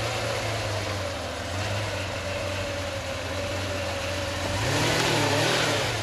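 McLaren F1's BMW V12 engine idling steadily, with a short blip of revs near the end that rises and falls.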